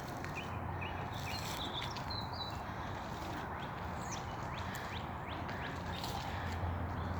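Several songbirds chirping and singing in short, quick calls over a steady low hum of background noise.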